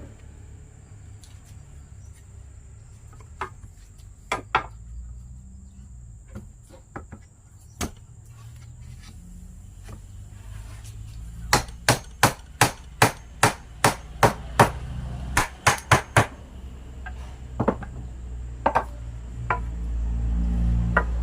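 Hammer blows on wood during carpentry: a few single strikes, then a quick run of about a dozen blows at roughly three a second, then a few more. A low rumble grows louder near the end.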